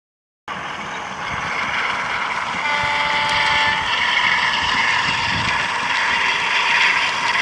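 DCC sound-fitted model diesel locomotive running, its engine sound from the on-board speaker growing louder as the train draws near. A short two-tone horn sounds about three seconds in.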